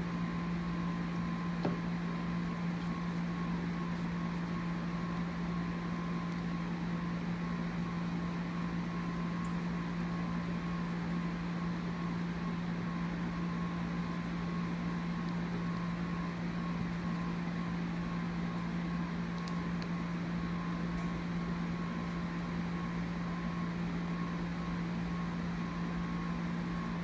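A steady low hum with a faint higher tone above it, unchanging throughout, like a running machine or fan.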